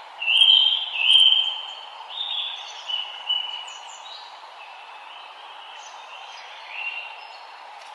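Forest songbirds singing: short, clear whistled phrases, the two loudest in the first second and a half, with fainter calls following at intervals, over a steady background hiss.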